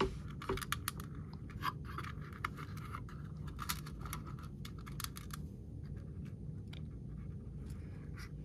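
Light clicks and scratching of small model parts being handled and fitted by hand on a workbench, busiest in the first five seconds and sparser after, over a low steady hum.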